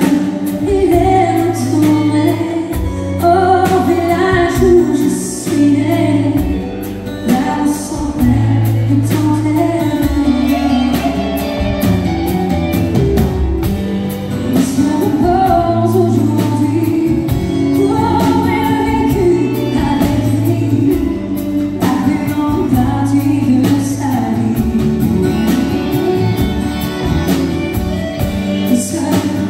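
Live country song: a woman singing a melody into a microphone, backed by a band of electric and acoustic guitars, bass guitar and drums with a steady beat.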